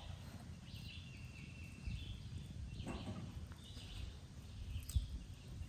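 Quiet outdoor background: a steady low rumble with a few faint, short, high bird chirps, and one soft knock about five seconds in.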